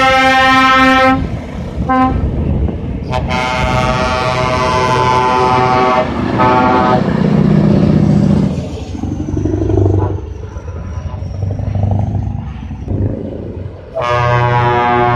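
Lorry air horns sounded in several blasts: a long one at the start, a short one, a longer one of several seconds, and another near the end. Between the blasts, diesel truck engines run as the lorries drive past.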